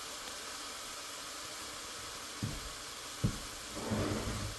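Cubed lobster mushrooms frying in olive oil in a small pan, a steady hiss as they start to give off their moisture. Two light knocks about a second apart, past the middle.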